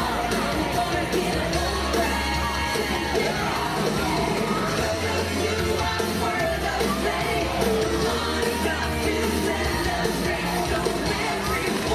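Upbeat parade music with singing and a steady beat, played loud.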